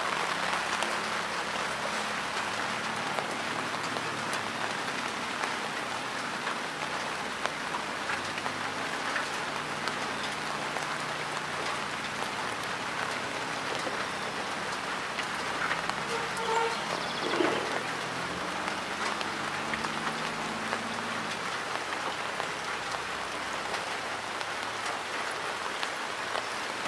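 Steady rain falling onto shallow floodwater and wet grass.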